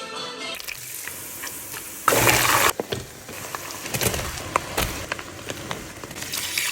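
Kitchen cooking sounds: a brief rush of pouring or splashing liquid about two seconds in, with scattered clicks and knocks of utensils and cookware around it.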